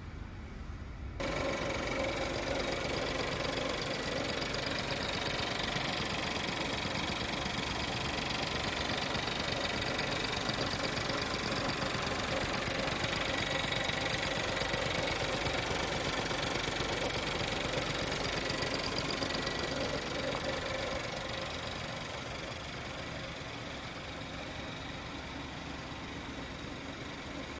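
Seat Leon FR's 1.4 TSI turbocharged four-cylinder petrol engine idling steadily, heard with the bonnet open. The sound gets suddenly louder about a second in and fades somewhat after about twenty seconds.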